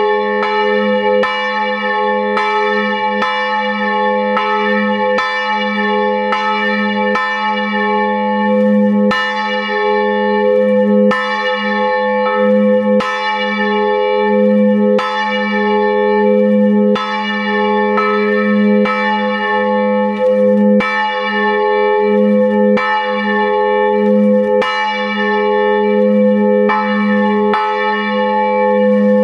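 Bronze church bell swinging in full peal, heard from inside the belfry: its clapper strikes about once a second, and each strike rings on into the next over a steady deep hum.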